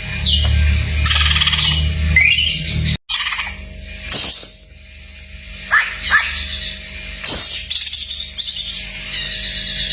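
Cucak ijo (green leafbird) singing a varied, mimicry-filled song of rapid chirps, trills and sharp downward-sweeping whistles, with a faint steady hum beneath. The song breaks off abruptly about three seconds in and picks up again with separate sweeping calls and trills.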